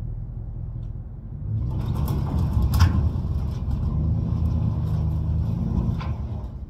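Dump truck engine running, getting louder and rougher about a second and a half in, with scattered clicks and one sharp knock near three seconds in.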